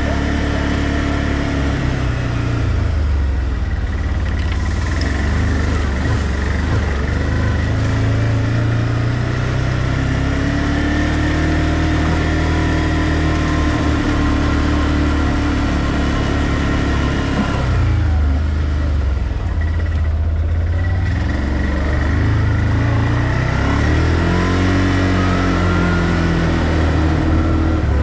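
ODES 650 ATV engine running under way, its revs repeatedly rising and falling with the throttle.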